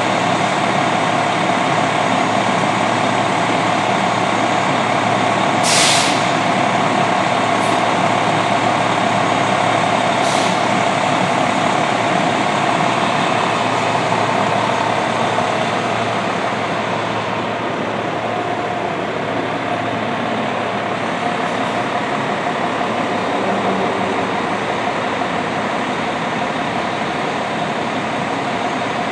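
Rear-mounted Detroit Diesel Series 60 EGR inline-six of an MCI D4500 coach, idling steadily. A short sharp air hiss about six seconds in is typical of the air brakes.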